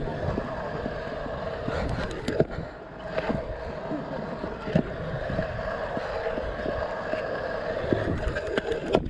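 Pro scooter's wheels rolling over skatepark concrete: a steady rolling whir, broken by several sharp clacks.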